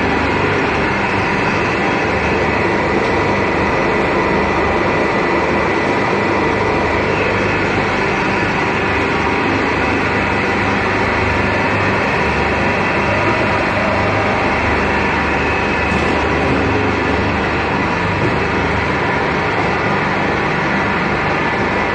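Steady, loud drone of running factory machinery on an animal-fat rendering line: the motors and pumps of the processing equipment, with a few faint held tones over a dense rumble.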